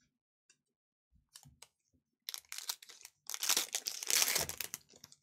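Foil wrapper of a Panini Donruss basketball card pack crinkling and tearing as it is opened by hand, loudest between about three and four and a half seconds in, after a few light clicks.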